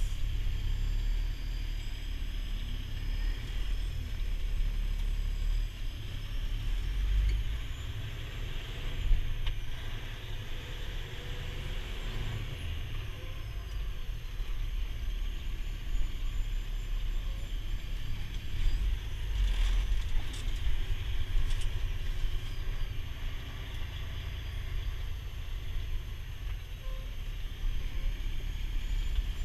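Heavy wrecker's diesel engine and drivetrain heard from inside the cab while the truck drives, a steady low rumble.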